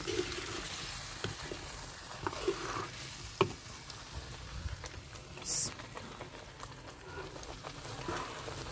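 A steel spoon stirs roasted roti powder into hot desi ghee and sugar syrup in a brass karahi. There is a faint steady sizzle, with a few sharp clicks of the spoon against the pan.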